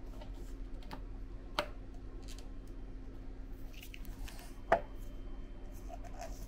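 A plastic lid being handled and pressed onto a paper cup: a few light ticks and two sharp snaps, about a second and a half in and near five seconds, the second the louder, over a steady low hum.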